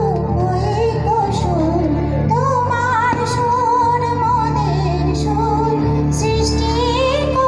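A woman singing a Hindi patriotic song through a microphone over instrumental accompaniment, her melody wavering with vibrato.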